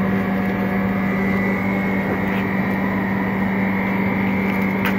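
Steady machine hum and whir from a low-temperature LCD separating freezer's compressor and cooling fans running.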